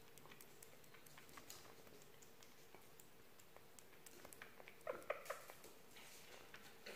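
Sugar glider eating a piece of marshmallow: faint, scattered clicks and smacks of its chewing, with a short cluster of louder little pitched noises about five seconds in, the 'puku-puku' sound it makes while eating.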